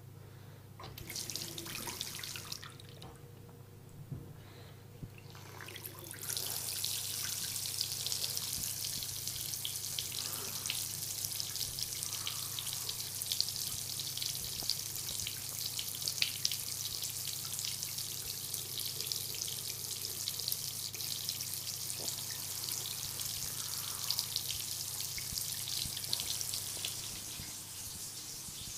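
Bathroom basin tap running into a ceramic sink. After a short gush about a second in, the water flows steadily from about six seconds in, splashing in the bowl.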